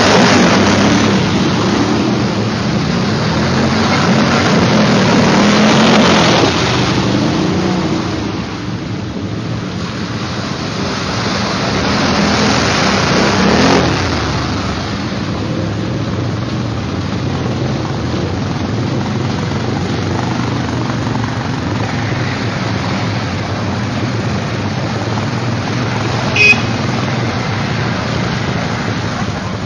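Quad bike (ATV) engines revving as the quads plough through muddy puddles close by, with water and mud splashing; the loudest passes come in the first seven seconds and again around thirteen seconds, then the engines run more steadily. A short sharp click near the end.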